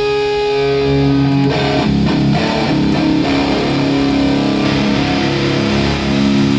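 Hardcore band playing live with heavy distorted electric guitar: a held, ringing chord, then the band moves into a riff about a second and a half in.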